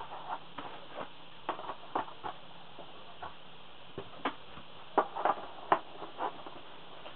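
Light, scattered clicks and taps of a cardboard CD box set and its contents being handled and packed back together, with the sharpest knocks about five seconds in.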